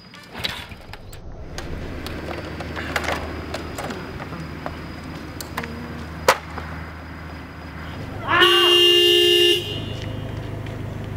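Car horn sounded once, a single held toot of just over a second, then a car engine running low and steady.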